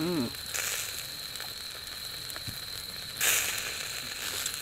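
Food sizzling over the wood stove, a steady hiss with small crackles and two brief louder spurts, about half a second in and about three seconds in.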